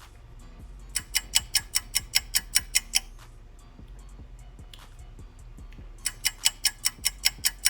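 Rapid, even ticking at about five ticks a second, in a run of about two seconds, then a pause, then a second run starting about six seconds in, over a low steady hum.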